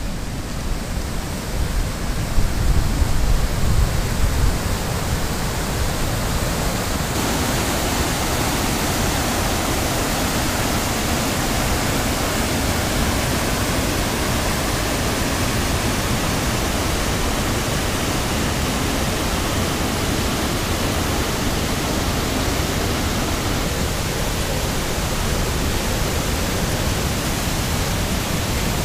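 Rainbow Falls on the Steel River: whitewater pouring over rock ledges and through boulder rapids, a steady rushing of water. A heavier low rumble comes about two to five seconds in, and the rush turns brighter and hissier about seven seconds in.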